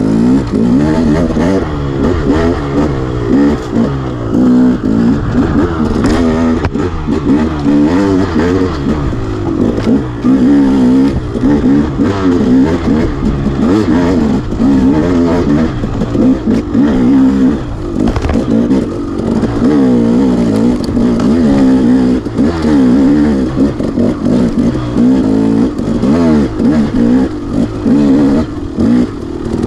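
Enduro dirt bike engine revving up and down as the throttle is opened and closed, its pitch rising and falling every second or so.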